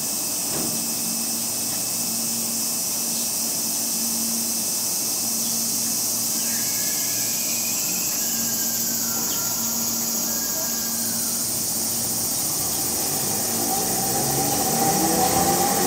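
Chikuho Electric Railway 2000-series tram departing: a steady hum while it stands, then, near the end, its traction motors start a whine that rises in pitch as it gets moving. A high, steady insect drone runs throughout.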